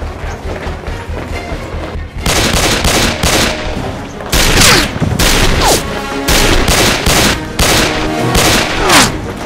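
Bursts of rapid gunfire, film sound effects laid over dramatic background music, starting about two seconds in and coming in several volleys.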